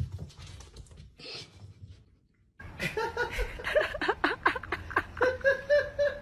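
Faint scattered noises, then about two and a half seconds in a man laughing hard in quick repeated bursts.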